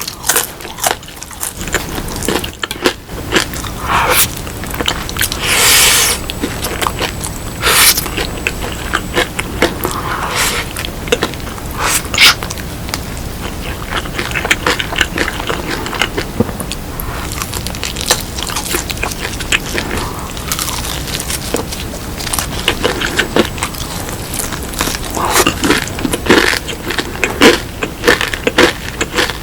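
Close-miked crunching bites and chewing of crispy BHC Bburinkle fried chicken, irregular and repeated, with a quick run of crunches near the end.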